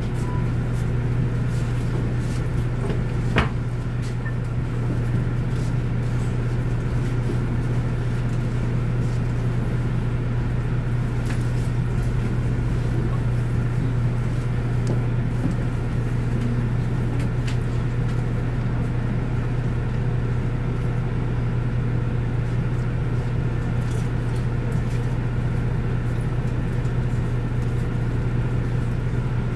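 Steady low drone inside a city bus standing at a stop, with one sharp click a few seconds in.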